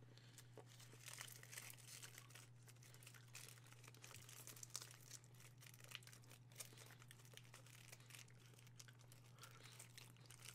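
Faint, irregular crinkling and crackling of a chocolate truffle wrapper being handled, over a steady low hum.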